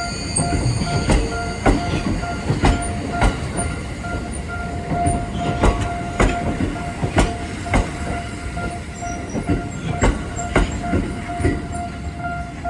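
Tokyo Metro Ginza Line train rolling slowly over the depot level crossing, its wheels clacking irregularly over the rail joints, over a steady high tone.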